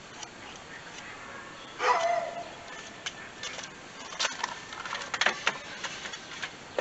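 Scattered light metallic clicks and clinks of hand tools and engine parts being handled, with a brief squeak about two seconds in.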